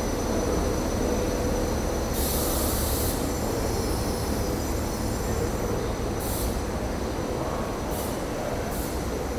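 SEPTA Regional Rail electric train rolling past the platform with a steady low rumble. Short high squeals from the wheels come about two seconds in, again around six seconds, and twice near the end.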